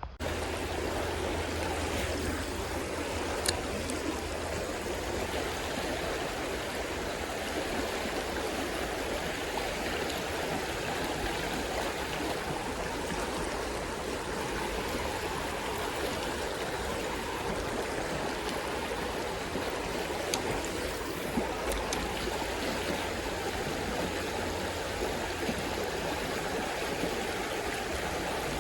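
Creek water running, a steady rushing flow with a few faint clicks.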